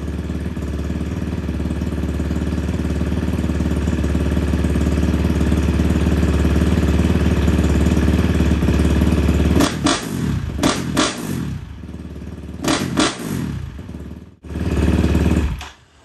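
KTM 350 four-stroke single-cylinder dirt bike engine, with a 365 big-bore kit and a Vortex ECU, idling steadily, then blipped sharply several times in quick succession. It goes quiet briefly, runs again and stops just before the end. The owner calls the throttle response incredible and says the ECU now feeds it more fuel where it used to run lean.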